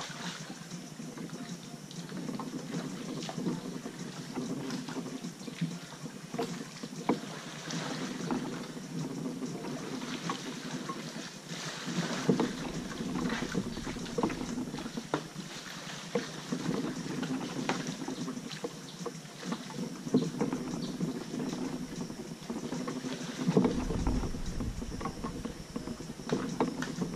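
Kayak being paddled through water: paddle strokes with splashes and many small knocks and drips. A low rumble of wind on the microphone comes in near the end.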